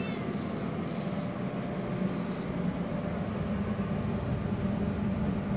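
Steady mechanical hum with a low drone and hiss, a machine running continuously in the room.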